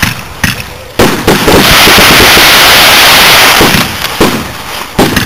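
Aerial firework shells bursting overhead, very loud. Two sharp bangs come in the first second, then about two seconds of dense, continuous noise, then a few more bangs that fade.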